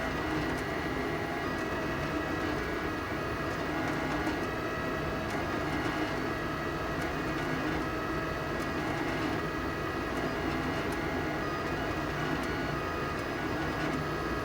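FLSun delta 3D printer printing, its stepper motors whining in short, shifting tones over a steady hum.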